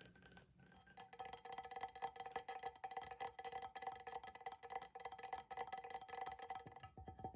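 Fingernails tapping very fast on a hard object that rings with a steady pitch under the taps. The rapid tapping picks up about a second in, and near the end the ringing fades into lower, duller taps.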